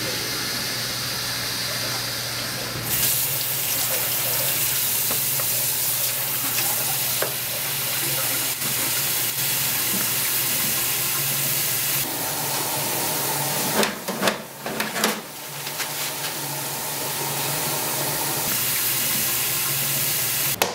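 Faucet running a steady stream of water into a bathroom sink, splashing in the basin. It gets louder about three seconds in and dips briefly a few times a little past the middle.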